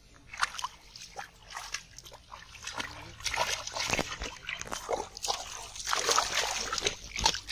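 Shallow muddy water splashing and sloshing as a boy wades through it and lunges with his hands at a carp, in irregular bursts that grow heavier in the second half.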